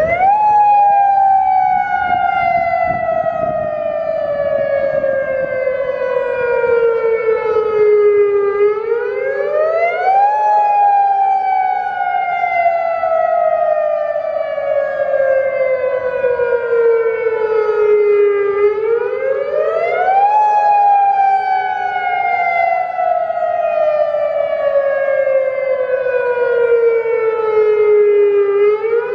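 Federal Signal DSA electronic outdoor warning siren sounding its wail during a monthly test: the tone rises quickly, then falls slowly, repeating about every ten seconds.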